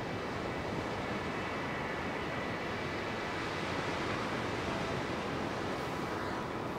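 A steady, even rushing noise like surf or wind, with no distinct events.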